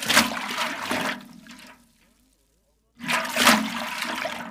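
Two big splashes of a toy truck plunging into shallow river water, each a sudden burst of splashing that dies away over a second or so; the second comes about three seconds in.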